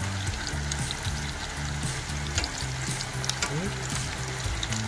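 Pieces of dried catfish (khô cá dứa) sizzling and crackling in hot oil in a wok, a steady fizz with scattered pops. Background music with a steady low melody plays underneath.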